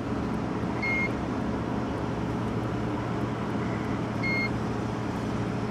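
Vehicle engine and road noise heard from inside the cab while driving, with two short high beeps about three seconds apart.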